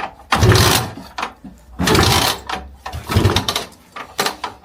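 Lambretta scooter's two-stroke single-cylinder engine being kicked over about four times, roughly once a second, without catching; it is being started on a freshly changed dry spark plug after the old one was wet.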